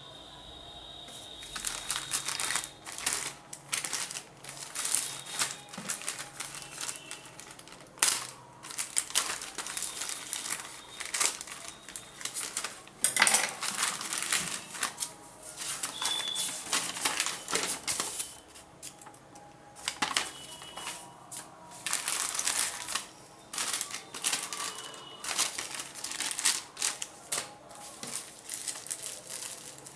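Packaging being handled and unwrapped: irregular crinkling and rustling with sharp clicks and taps.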